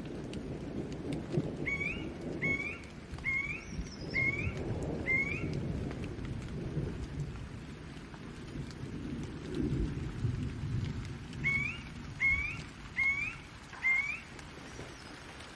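Steady rain with low, rolling thunder swelling and fading. Over it, a bird repeats a short rising call five times in quick succession a couple of seconds in, then four more times near the end.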